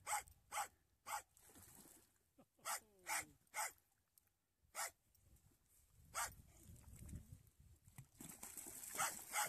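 A schnauzer barking: about nine short, sharp, high-pitched barks in irregular groups, with a longer gap in the middle.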